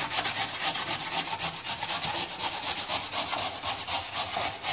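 Peeled raw potato being grated on a flat stainless-steel hand grater with a red plastic frame: a rasping scrape on each stroke, repeated in a quick, even rhythm.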